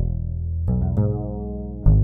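Background music with a strong bass line and notes that start sharply, a new one every half second or so.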